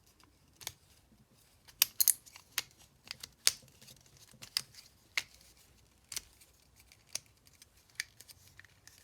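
Irregular sharp plastic clicks and snaps of a hand-held twisty puzzle being turned, with uneven gaps between them.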